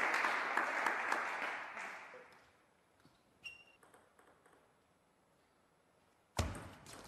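Applause, many quick hand claps, fading out about two seconds in. Then near silence until a sudden loud sound near the end.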